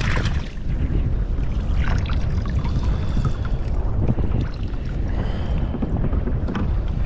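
Wind noise on the microphone over water lapping around a sit-on kayak, with a few brief splashes and knocks as a landing net is lifted out of the sea.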